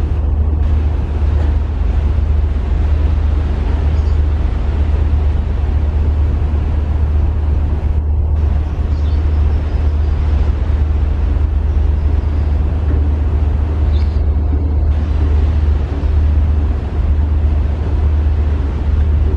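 Low, steady drone of a ferry's engines, heard aboard the moving ship, with a constant haze of wind and water noise over it.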